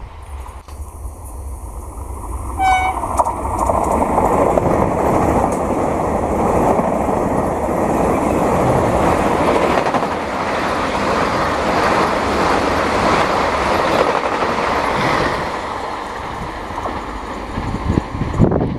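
Vande Bharat electric train giving one short horn toot about three seconds in, then passing at speed: a loud, steady rush of wheels on rail and air that lasts about twelve seconds and then fades.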